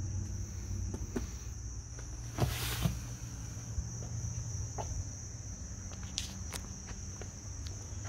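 Steady high-pitched insect chirring, typical of crickets, over a low background rumble. Scattered light clicks are heard, with one louder brief scuff about two and a half seconds in.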